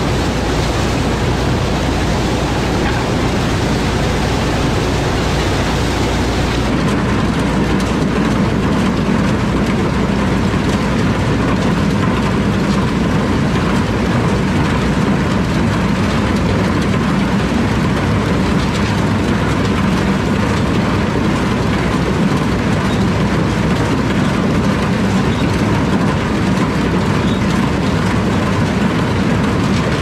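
A New Idea two-row corn picker working through standing corn, its rolls, chains and husking bed running with a steady mechanical rattle, over the John Deere 4020 diesel tractor pulling it. The sound changes slightly about seven seconds in.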